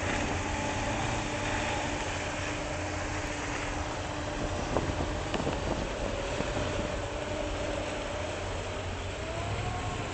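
Outboard engines running at speed, the mini thundercat's Tohatsu 30 hp among them, with wind on the microphone. A steady low rumble sits under an engine whine that climbs slightly in pitch about nine seconds in.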